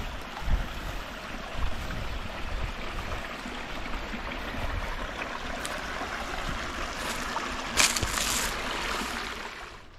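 Small river water flowing and rushing close to the microphone, with a short sharp noise about eight seconds in.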